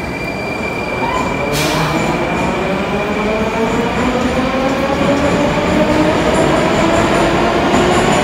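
Moscow Metro train pulling away from the platform: its electric traction motors whine in several tones that rise steadily in pitch as it speeds up, growing louder, with a short hiss about a second and a half in.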